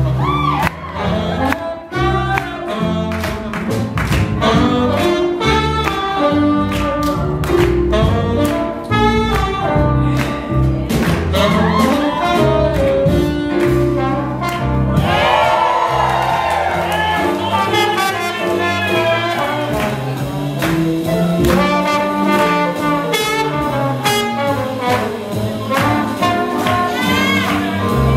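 Live swing jazz band playing, with trumpet, trombone, saxophone, piano, upright bass and drums, over a steady beat.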